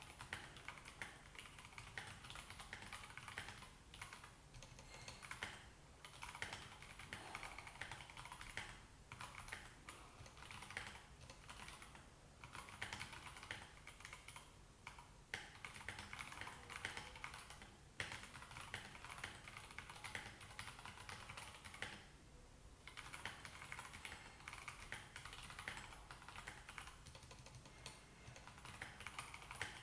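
Continuous typing on a Royal Kludge RK84 mechanical keyboard with stock Gateron Yellow linear switches and thick XDA-profile PBT keycaps: a dense run of keystrokes, broken by brief pauses, the longest about two-thirds of the way in.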